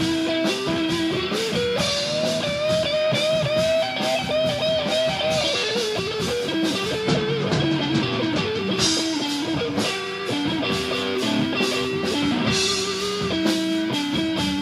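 Instrumental break of a rock song: a lead guitar melody with wavering, gliding notes over a backing of strummed guitar and a drum kit.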